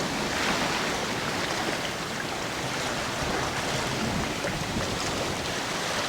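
Steady rush of sea water washing along the hull of a sailing yacht under way.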